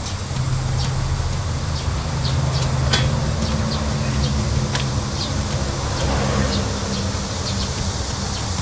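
A steady low buzzing hum that wavers a little in pitch, with a few faint light taps scattered through it.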